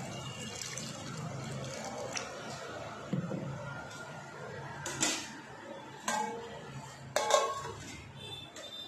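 Water poured from a jug into a simmering curry in a kadai. Then a few metallic clanks as a steel lid is set on the pan; the loudest comes about seven seconds in, with a brief ring.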